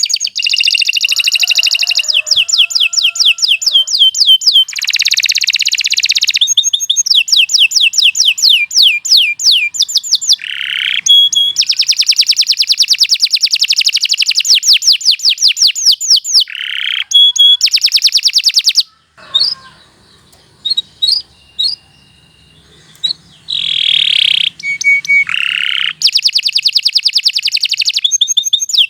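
Domestic canary singing a long song of fast, sharp trills and rolls, with a quieter pause of a few seconds about two-thirds of the way through.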